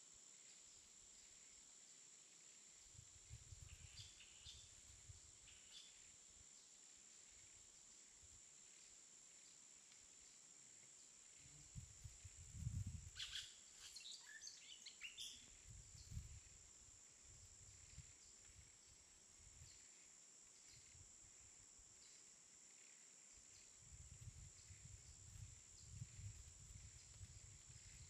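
Near silence: faint outdoor ambience with a steady high hiss and occasional low rumbles, and a brief cluster of short, high chirps about halfway through.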